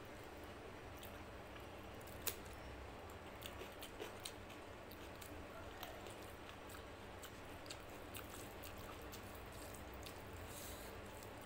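Faint wet squishing and light clicks of a hand kneading rice into mutton and potato curry on a plate. One sharper click comes about two seconds in, over a low steady hum.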